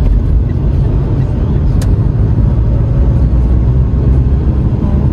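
Steady low rumble of a car's tyres and engine heard inside the cabin while driving, with a single faint click about two seconds in.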